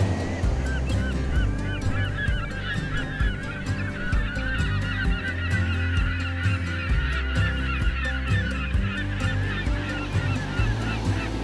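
A flock of birds giving many short, rapid, overlapping calls, over background music with a steady beat.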